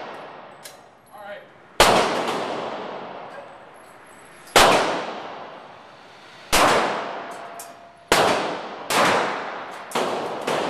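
Six shots from a Glock 17 Gen4 9mm pistol, spaced one to three seconds apart with the last three coming quicker, each followed by a long echoing tail.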